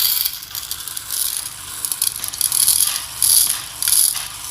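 Dry urad dal (split black gram) being scooped and poured into a measuring cup, the grains rattling and rustling, with several louder surges as more is heaped on.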